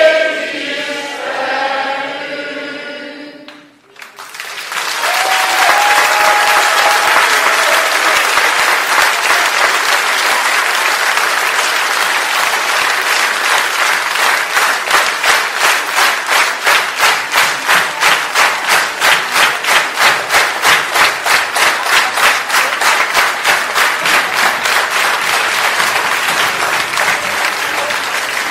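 A concert crowd singing together, breaking off after a few seconds into loud applause and cheering. Around halfway the applause turns into rhythmic clapping in unison, about two to three claps a second.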